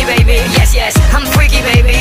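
Electronic dance music with a steady kick drum at about two and a half beats a second and a synth melody over it.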